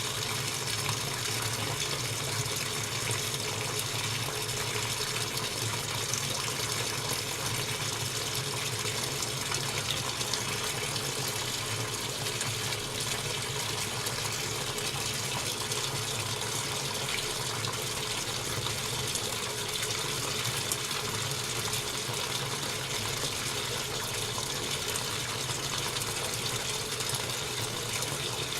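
Washing machine running, a steady rush of water over a constant low hum.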